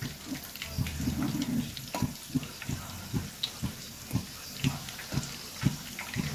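Soaked charoli nuts frying in ghee over a low flame, bubbling with frequent small irregular pops and crackles, while a metal spatula stirs them in the aluminium kadhai.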